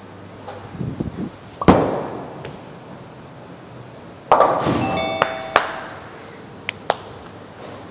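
A bowling ball lands on the lane with a thud and rolls away. About two and a half seconds later it crashes into the pins, which clatter and ring, and a few last knocks of falling pins follow.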